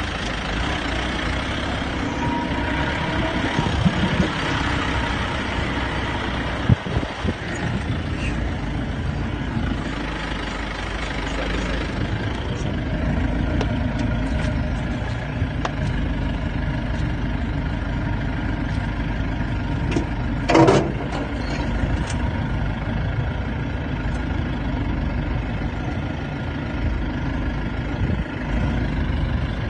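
Safari jeep engines running and idling, a steady low rumble heard from inside the vehicle. There is a sharp knock about seven seconds in and a brief loud sound about twenty seconds in.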